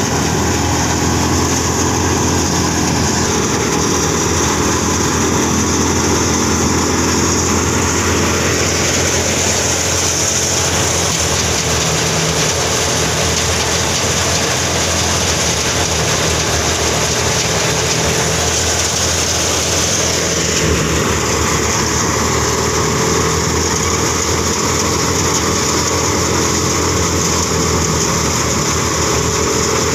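Tractor-driven wheat thresher running steadily: the tractor engine's drone together with the whirr and hiss of the thresher drum and blower as it threshes wheat.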